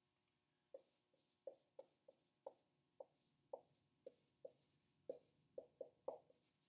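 Dry-erase marker writing on a whiteboard: a faint series of short squeaks, about two a second, unevenly spaced and coming closer together near the end.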